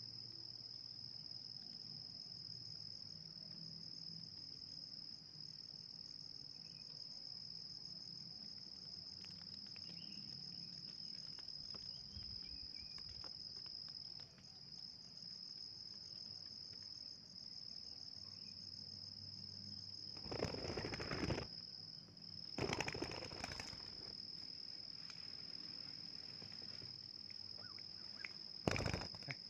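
Insects droning steadily on one high pitch. Three short, loud bursts of noise cut in about two-thirds through, again a couple of seconds later, and near the end.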